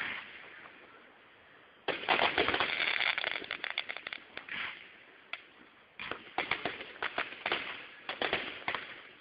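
Aerial fireworks bursting, heard through a phone's microphone that crackles on the loud bangs. A rapid volley of sharp bangs and crackles starts about two seconds in, a single pop follows in a short lull, and a second volley starts about six seconds in.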